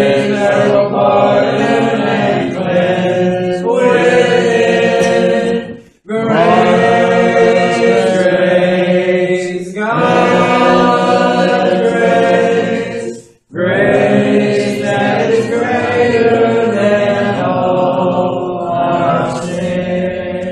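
Congregation singing a hymn a cappella, in long held phrases with brief pauses for breath about 6, 10 and 13 seconds in; the singing dies away near the end.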